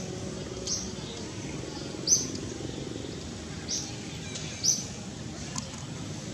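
A bird giving short high-pitched chirps, four of them a second or so apart, over a steady low hum of forest background noise.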